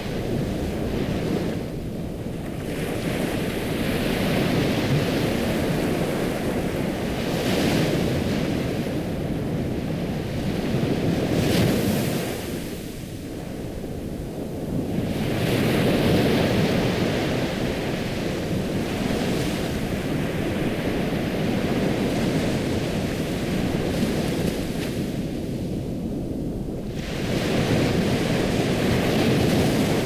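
Ocean waves breaking and washing in, the surf swelling and ebbing about every ten seconds.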